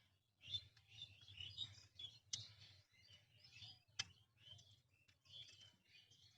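Faint chorus of small songbirds chirping and twittering, with two sharp clicks about two and a half and four seconds in.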